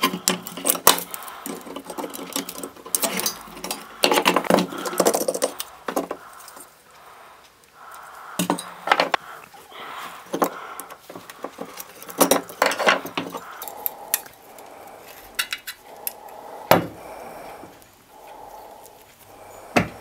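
Irregular metal clinks, knocks and scrapes of pliers working a microwave magnetron apart: its sheet-metal cooling fins and steel frame being bent and pulled off to free the ferrite ring magnets. The clatter comes in bunches with quieter gaps, and a few single sharp knocks later on.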